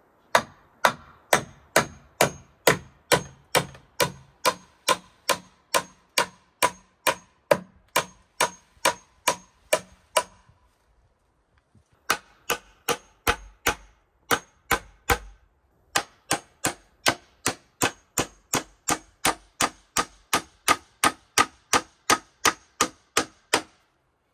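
A hammer striking the joints of a frame of peeled wooden poles in steady blows, about three a second, with a metallic ring. The blows come in three runs with two short pauses between them.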